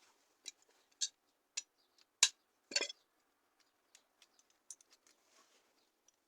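Sharp metallic clicks from working the quick-release door hinge hardware, the loudest about two seconds in and followed at once by a short metal rattle, then a few faint ticks.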